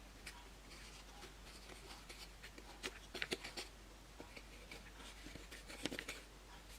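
Slime being squished and worked by hand: irregular soft sticky clicks and crackles, in two denser clusters about three seconds in and near six seconds.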